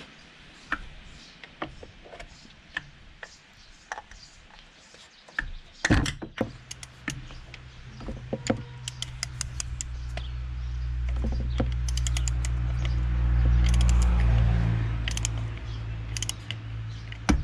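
Sharp scattered clicks and knocks of metal tools and parts being handled on a car engine. About six seconds in, a steady low hum starts, swells, and eases off near the end.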